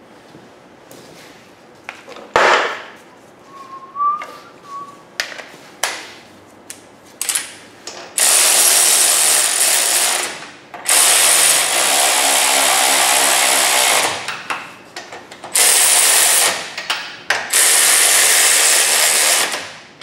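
Cordless ratchet running in four runs of one to three seconds each, driving home the rear differential's carrier bearing cap bolts, after several seconds of metal parts clicking and knocking into place.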